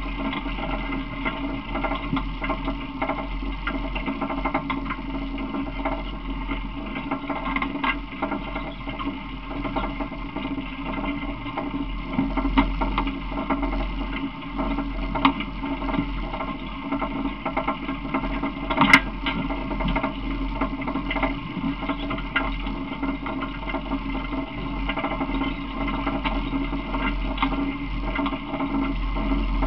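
Steady rumbling and rattling of a small open vehicle rolling along, with light clicks throughout and one sharp knock about two-thirds of the way through.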